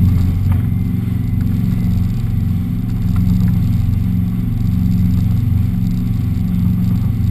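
Four Winns motorboat's engine running steadily at speed while towing a tube, a loud, constant low drone.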